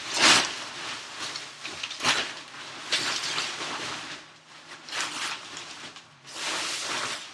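Rain fly fabric of an REI Passage 2 tent rustling and swishing as it is handled and drawn over the tent, in about five separate swishes.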